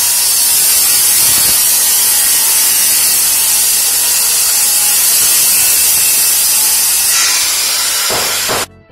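Electric jigsaw cutting through a hardwood floorboard: a steady, loud, harsh buzz that cuts off suddenly near the end.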